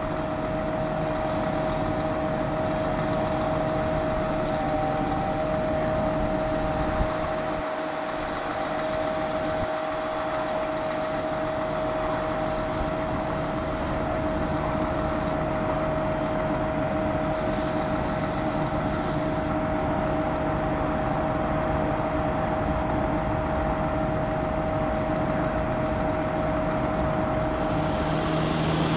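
Scania lorry's diesel engine running steadily at idle while it drives the truck-mounted loader crane, with a steady whine carried over it. The engine sound stays even throughout, with no change in pitch.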